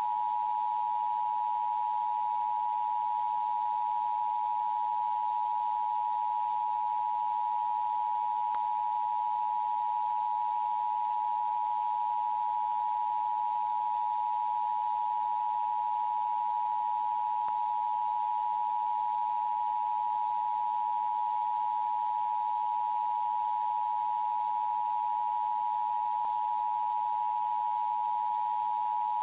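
A steady, unbroken high-pitched electronic tone from an emergency alert broadcast, held at one pitch and one loudness, with a faint hiss underneath.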